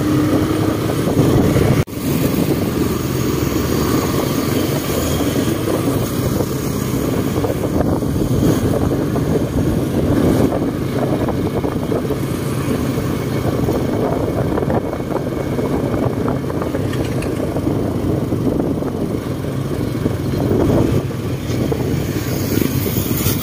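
Steady wind rush and road noise from riding in open traffic, with motorcycle engines running. There is a brief dropout about two seconds in.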